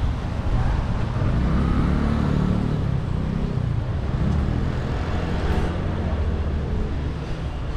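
Street traffic: a motor vehicle's engine running close by with a low rumble over road noise, swelling about two seconds in.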